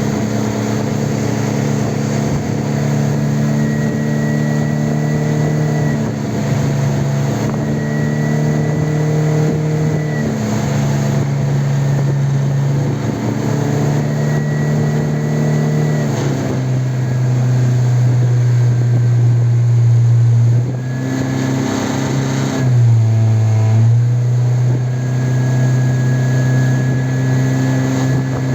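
Parsun F60 four-stroke outboard motor running, with a thin high whistle that comes and goes over the engine note several times. The engine speed shifts a few times, settling lower about halfway through.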